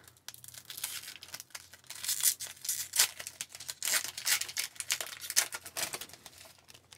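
Crinkling and tearing of a foil trading-card pack wrapper as a pack of hockey cards is opened and the cards are handled, a dense run of irregular crackles and snaps that fades near the end.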